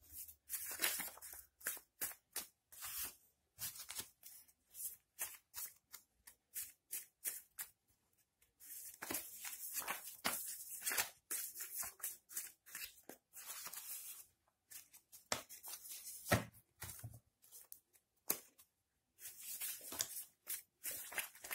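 A deck of round paper oracle cards shuffled by hand: quick brushing, flicking strokes of card against card in rapid runs, broken by a few short pauses.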